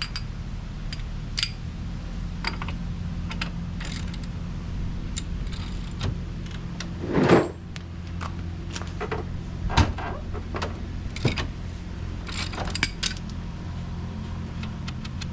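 An ATV engine idling steadily, with scattered clicks and rattles over it and a louder scraping clatter about seven seconds in.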